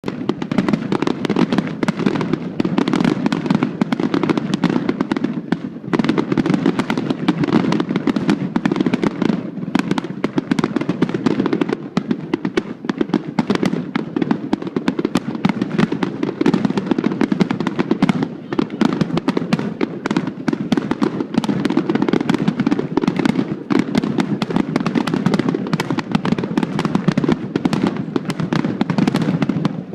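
Fireworks display: a dense, continuous barrage of bangs and crackling bursts, close together with no pauses.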